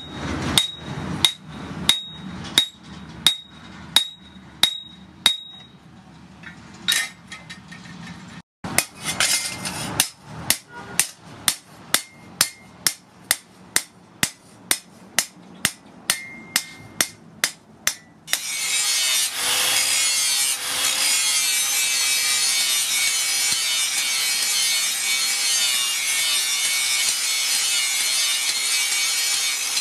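Hammer blows on a flat steel blade made from a chainsaw bar, lying on an anvil. At first there is about one ringing strike every 0.7 s, then after a short break the strikes come faster, two or three a second. About eighteen seconds in, an angle grinder takes over, its disc cutting into the steel plate with a steady high hiss.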